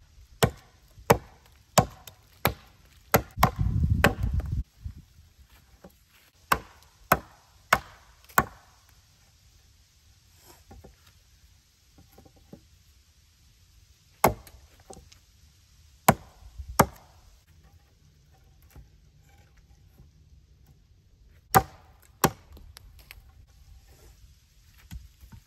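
Chopping blows of a blade into the ends of dead cedar poles, sharpening them to points: a quick run of strikes at about two a second, a few more in a cluster, then single and paired strikes several seconds apart. A brief low rumble about four seconds in.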